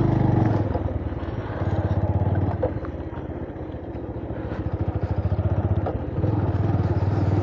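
Motorcycle engine running at low speed while the bike is ridden slowly over bare rock. Its sound swells and drops back a few times.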